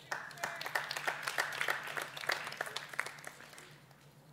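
A congregation applauding: a burst of scattered clapping that starts abruptly and thins out over about three seconds.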